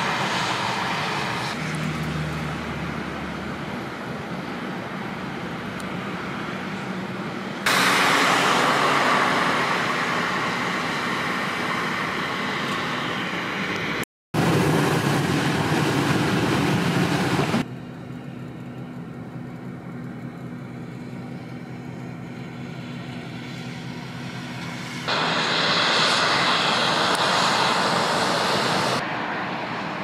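Steady traffic noise from vehicles on a snowy highway. The level jumps abruptly louder or quieter several times and drops out completely for a moment about halfway through.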